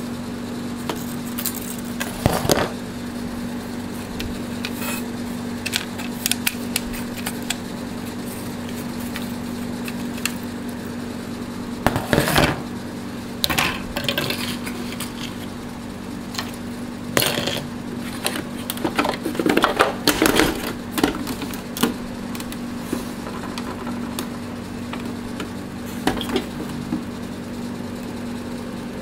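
Scattered clicks, knocks and clatter of the Canon MP210 printer's hard plastic casing and parts being handled while it is taken apart, in clusters about 2 seconds in, around 12 seconds and around 20 seconds, over a steady low hum.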